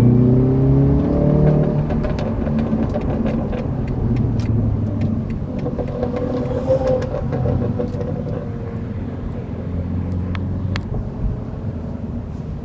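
BMW 340i's turbocharged inline-six exhaust: the engine revs up, then pops and crackles in a quick run as the revs fall off, the overrun burble. A smaller rev follows, with a few more pops later.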